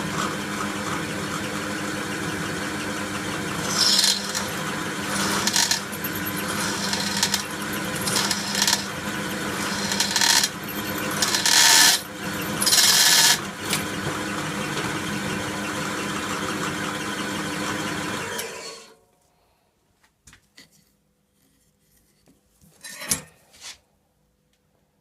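A workshop power tool's motor running steadily, with several louder, harsher bursts in the middle as the work meets it, then switched off about three quarters of the way in. A few faint clicks and a light knock follow.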